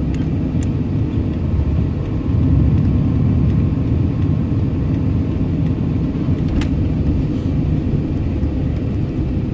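Truck engine and road noise heard from inside the cab while driving, a steady low rumble that swells briefly about two and a half seconds in. A single sharp click comes about two-thirds of the way through.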